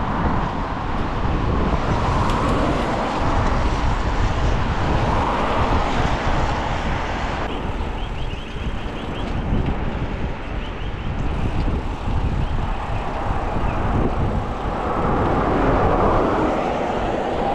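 Road traffic on a wet road passing close by, tyre hiss swelling and fading a few times, over a steady rush of wind on the microphone from riding a bicycle.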